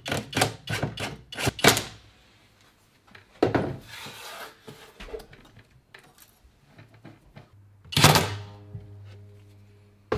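Metal drawer runners being handled and fitted inside a plywood cabinet: a quick series of sharp clicks and knocks, then a louder knock, and a loud clatter about eight seconds in.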